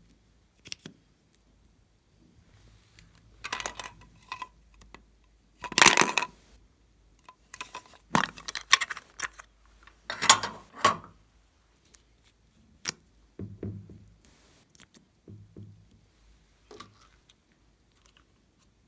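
Irregular bursts of clicks, crackles and light rustles from slime and small objects being handled and mixed by hand, loudest in a few clusters through the first half.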